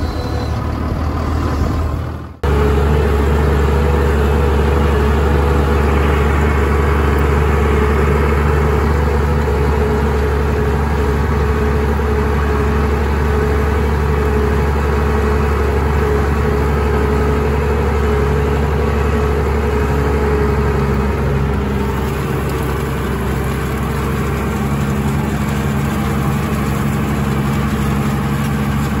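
Diesel tractor engine running steadily, a low, even drone that breaks off for a moment about two seconds in and resumes unchanged.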